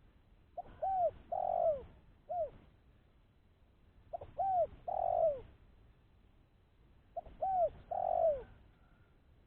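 Spotted dove cooing: three phrases, each a few short arched coos ending in a longer falling note, about three seconds apart.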